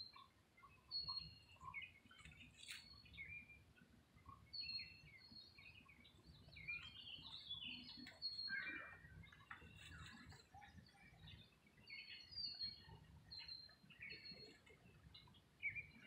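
Small birds chirping and calling, faint, with many short high notes repeating through the whole stretch over a low background rumble.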